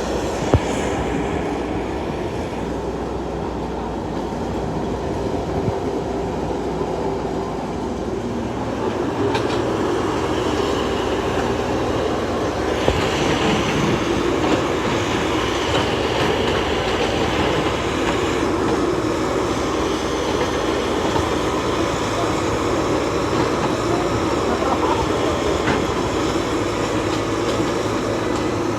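Excavator's diesel engine running steadily as it digs, with a few sharp knocks; a higher hiss joins about halfway through.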